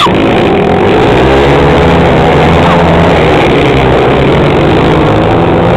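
A pack of dirt-track racing motorcycles running hard through a turn, several engines overlapping in a loud, steady drone with their pitches wavering up and down.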